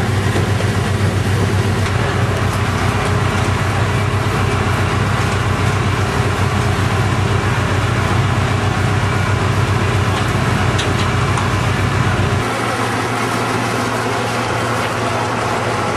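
Fire engines' engines running steadily with a low rumble, over street noise. About twelve seconds in, the deepest part of the rumble drops away.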